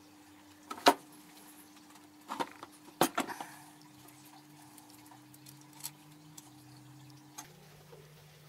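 Metal knocks and clinks as a mini lathe's headstock and bed are handled and turned over on a workbench. A sharp knock comes about a second in and a cluster of knocks around three seconds in, then a few light taps.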